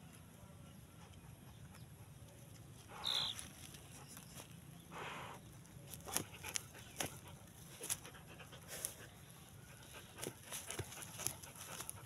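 A dog snuffling with its nose in a hole in the ground: two short rushes of breath, with a brief high squeak at the first one about three seconds in, then a run of quick, scratchy clicks as it keeps nosing and pawing at the dirt.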